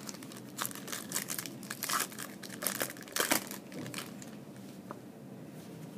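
Crinkling and tearing of plastic card-pack wrapping being handled, dense for the first three seconds or so, then dying down to lighter rustling.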